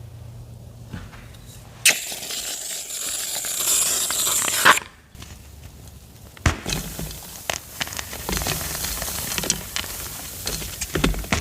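Blocks of gym chalk being crushed and crumbled, crunching and crackling. A dense crackling hiss starts suddenly about two seconds in and stops abruptly near five seconds. Many separate crisp crunches follow from about six and a half seconds.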